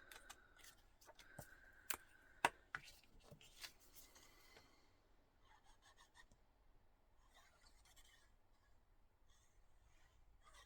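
Quiet handling of paper and card pieces: faint rustling with a few light taps or clicks in the first few seconds.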